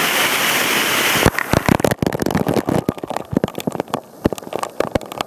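Waterfall rushing steadily. About a second in, it gives way to dense, irregular crackles and pops as falling water hits the camera and its microphone.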